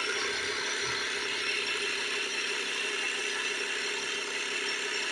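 Portable 12-volt air compressor (tire inflator) running steadily with a fast, even pulsing, pressurising a portable fuel tank to push the fuel through a hose into a truck's tank.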